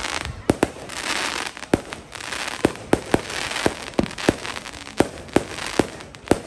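Aerial fireworks display: a quick, irregular string of sharp bangs from bursting shells, several a second, with crackling hiss from the sparks between them.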